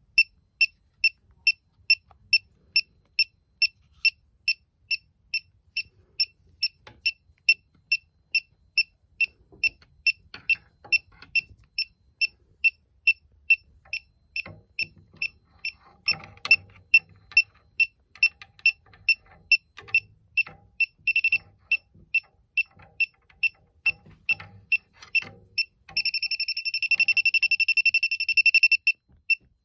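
Elitech WJL-6000 refrigerant leak detector beeping steadily at a high pitch about twice a second. It breaks into a fast, near-continuous alarm for about three seconds near the end as it picks up refrigerant at the known leak, with a shorter burst a little earlier. Faint handling noise runs underneath.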